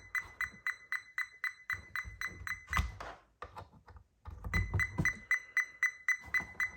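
Fluke 87 digital multimeter beeping in quick short pulses, about four a second, with a pause of about a second midway. This is the meter's test-lead warning beep, sounding with a lead in the current jack while the dial is on voltage, which shows the replaced fuse is carrying current.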